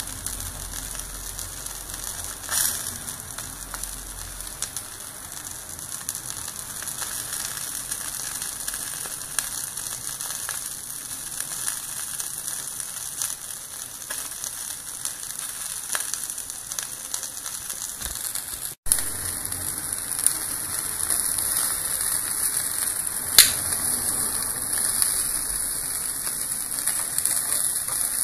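Andouillettes sizzling on an indoor electric grill, with a steady hiss and scattered crackles and pops as fat spits and bubbles in the tray beneath the grate. The sound breaks off for an instant about two-thirds in, then the sizzle comes back slightly louder.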